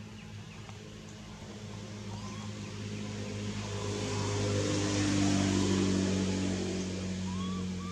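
A motor vehicle's engine running and passing by, its hum growing louder to a peak about five seconds in and then easing off slightly.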